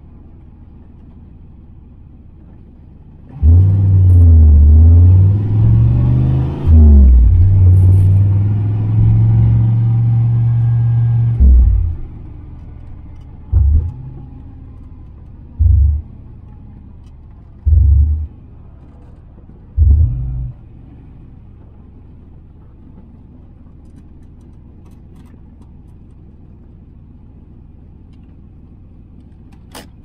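Turbocharged Fox-body Mustang 5.0 V8 heard from inside the cabin: a loud full-throttle pull of about eight seconds with a brief dip partway through. Then come four short throttle blips about two seconds apart, with the engine running low and steady between and after them.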